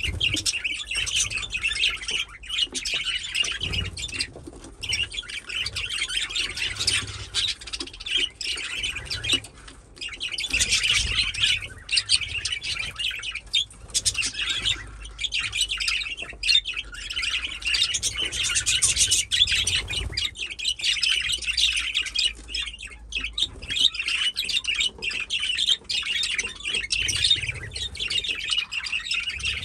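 Several budgerigars chattering and warbling: a dense run of quick overlapping chirps, with a few brief pauses.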